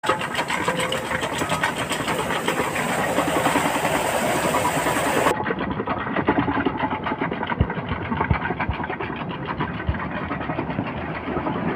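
Tractor's diesel engine running steadily, turning a Persian wheel well through its PTO shaft, with water spilling from the buckets; a few low knocks in the second half. The high hiss drops out abruptly about halfway through.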